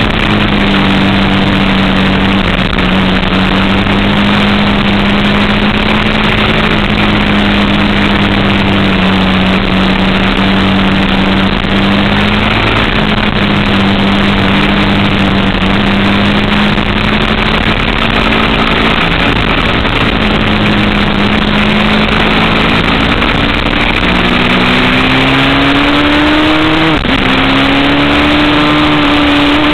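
Sport motorcycle engine running at speed on track, its note mostly steady, then climbing near the end, dipping sharply once and carrying on at a higher pitch. Heavy wind rush over the onboard camera microphone.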